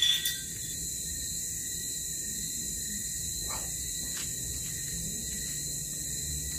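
Steady, high-pitched trilling of night insects over a low hum and hiss. Two soft knocks about halfway through come from the camera being handled.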